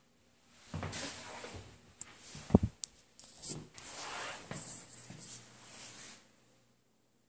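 Rustling and scraping noise, rising and falling for about five seconds, with one loud knock about two and a half seconds in.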